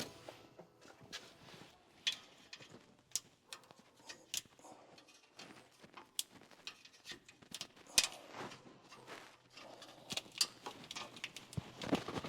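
Hand tools and parts being handled during work on the truck: irregular light clicks, taps and knocks, with one sharper knock about eight seconds in.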